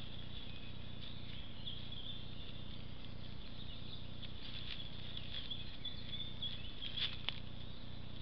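Faint rustling crackle with a few sharp clicks about seven seconds in, over a steady low electronic hum from a trail camera's microphone.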